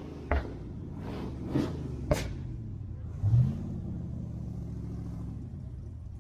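A car engine idling with a steady low rumble, revved up about three seconds in and held at higher speed for a couple of seconds before settling back. A few sharp clicks sound in the first couple of seconds.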